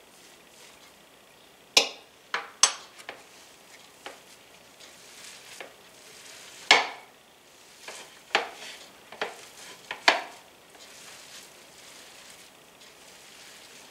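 Canned tuna patty mixture being mixed on a ceramic plate, first with a fork and then kneaded by hand: soft wet squishing with scattered sharp clinks and knocks against the plate.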